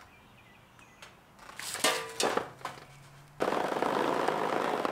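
Ratchet tie-down strap being worked and tightened: a few sharp clicks and rattles about two seconds in, then a steady, fast rasping run of clicks for the last second and a half.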